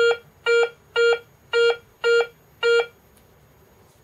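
Garrett ACE 250 metal detector beeping as a 15-kopeck coin is swept back and forth over its search coil: six short, even beeps, about two a second, that stop about three seconds in. The clean repeat on every pass is the sign of a detector and coil in working order.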